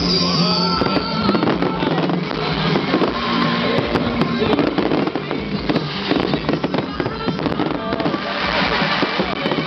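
Fireworks display going off in a dense barrage: rapid overlapping bangs and crackles, with the short whistles of rockets, over loud music.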